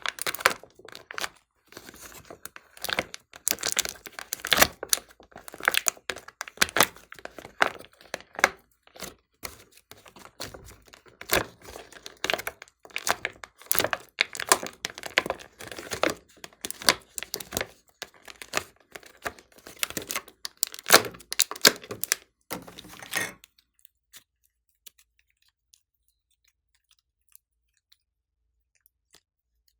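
Glossy slime being squished and stretched by hand, making a fast, irregular run of sticky pops and crackles that stops abruptly about 23 seconds in, followed by near silence.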